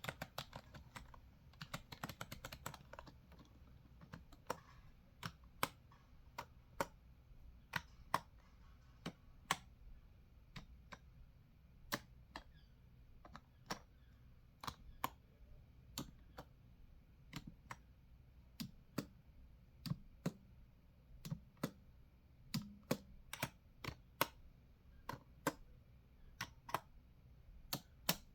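Computer keyboard typing: a quick run of keystrokes for the first few seconds, then slow, separate key presses about one or two a second.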